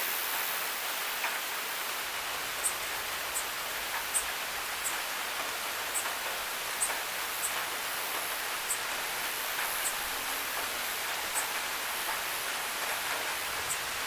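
Rainwater in a rain gutter: a steady hiss of water with irregular sharp drip ticks, roughly one or two a second.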